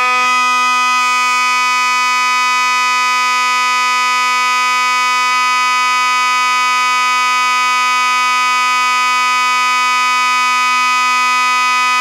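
FOS (Faraday) 6120 electromechanical fire alarm horn sounding continuously: one loud, steady, buzzy tone held without a break. It uses the same mechanism as the Simplex 6022 horn.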